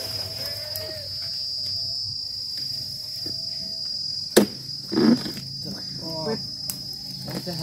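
A steady high-pitched insect drone, with a sharp knock about four seconds in as a dodos chisel on a long pole strikes into the oil palm's frond bases and fruit-bunch stalk. Short grunt-like vocal sounds follow the strike.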